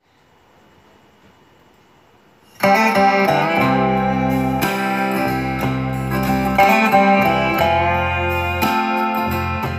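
Instrumental background music led by plucked guitar, cutting in suddenly about two and a half seconds in after a faint hiss.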